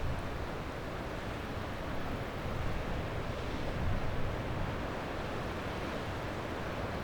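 Sea waves washing onto a beach, a steady rushing surf with a gentle swell about four seconds in, and a low rumble that may be wind on the microphone.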